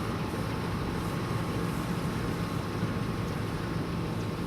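Steady mechanical drone with constant low hum tones and a faint thin whine above them, like a motor running at a fixed speed.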